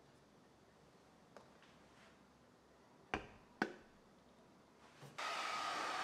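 A few light clicks and knocks, two of them sharper a little past halfway. Then a small motorised appliance switches on about five seconds in with a loud, steady rushing hiss.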